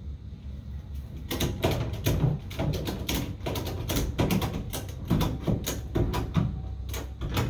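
Ratchet-strap buckle being cranked to tighten the strap: a run of short ratchet clicks, about two or three a second.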